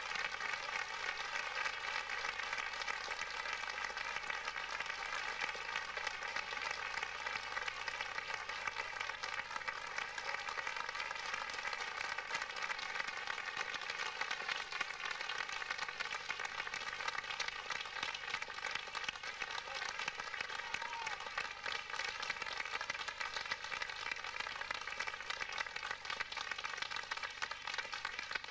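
Theatre audience applauding steadily, a dense, even patter of many hands clapping.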